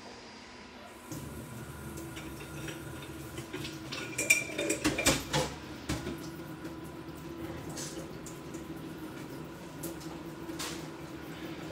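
Kitchenware being handled: a burst of metal and crockery clinks and knocks about four to six seconds in, over a steady low hum that starts about a second in.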